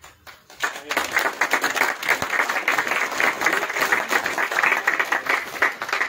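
A small crowd applauding: many hands clapping fast and unevenly, starting just under a second in and going on steadily.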